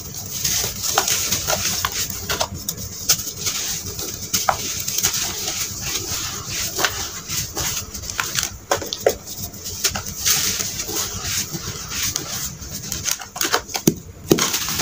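Red sand balls being crumbled and mashed by hand into a plastic tub right at the microphone: a continuous run of gritty crunching and crackling. Early on it is mixed with soft wet squishing as the crumbs land in muddy water.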